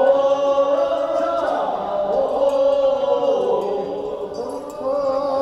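Voices singing a Korean sangyeo-sori, the funeral bier-carriers' chant, in a drawn-out line: one long held note that then slides down and wavers.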